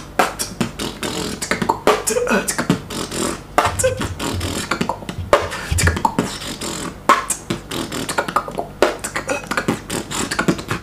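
A person beatboxing: a fast, uneven run of sharp mouth-made percussion clicks and snares, with a few deeper bass thumps.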